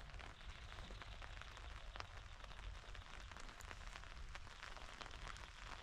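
Light rain falling: a faint steady hiss with scattered individual drop ticks, over a low rumble.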